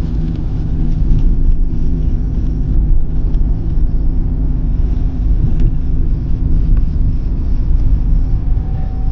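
A car driving along a road, heard from inside the cabin: a loud, steady low rumble of engine, tyres and wind.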